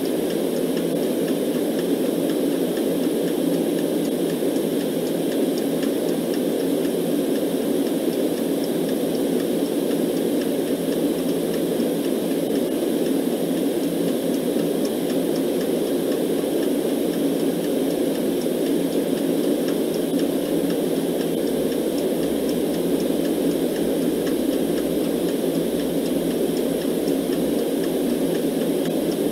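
Steady, deep rushing noise played as a sleep background, even and unchanging, with faint regular clock ticks on top.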